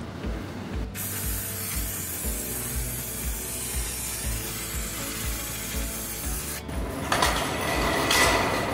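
Background music with a steady beat, over a steady hiss for about five seconds and then a louder rasping, mechanical noise near the end.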